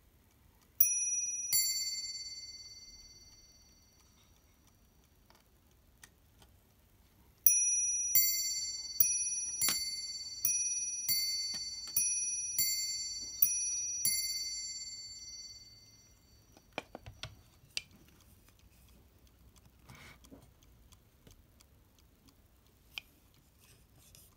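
Warmink mantel clock striking with two alternating notes: a ding-dong pair about a second in, then after a pause a run of about ten strikes roughly 0.7 s apart, each ringing on and dying away by about 16 s. The strikes are set off by hand as the clock's hands are turned. A few light handling clicks follow, and a sharp knock comes right at the end as a case door is shut.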